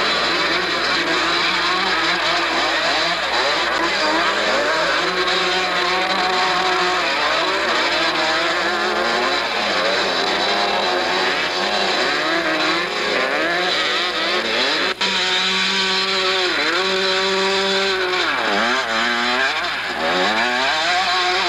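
Motocross motorcycle engines revving and shifting as the bikes race past, their pitch repeatedly climbing and dropping, with the thin sound of a Super 8 film camera's microphone. A single sharp click about fifteen seconds in.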